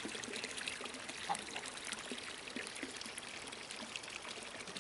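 Small stream's water trickling and splashing steadily.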